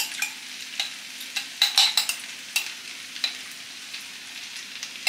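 Beef and tofu-skin stir-fry sizzling softly in a wok, with scattered sharp clicks and taps of a spoon and utensils. A faint steady hum runs underneath.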